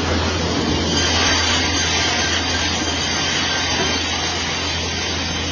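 Industrial band saw cutting lengthwise through a thick softwood beam: a steady, loud sawing noise over the low hum of the saw's machinery.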